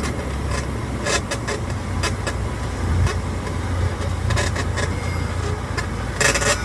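Cessna 150J cockpit noise during the landing: the Continental O-200 four-cylinder engine humming steadily at reduced power under a hiss of airflow, with a few short sharp knocks.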